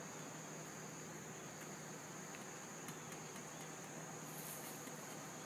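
Faint outdoor background with a steady, high-pitched insect trill, as of crickets, that holds without a break.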